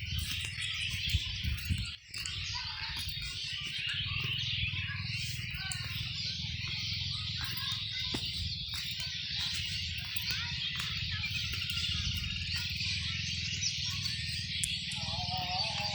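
A dense, steady chorus of many small birds chirping over a low rumble. A few clicks come near the start, and music begins near the end.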